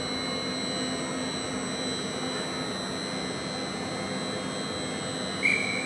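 Electric gantry crane hoisting gear running steadily as it lowers a train car body: a continuous mechanical hum with a high, steady whine. About five and a half seconds in, a short, loud high-pitched tone cuts in.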